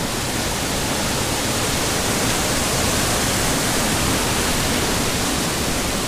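Waterfall pouring over rock, a steady rush of white water with the stream running fairly high.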